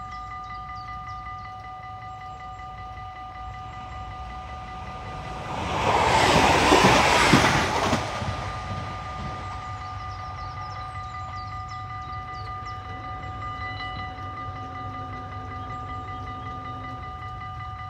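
Level-crossing warning bell ringing steadily while a passenger train rushes past about six seconds in, loudest for about two seconds. The bell stops near the end as the barriers rise.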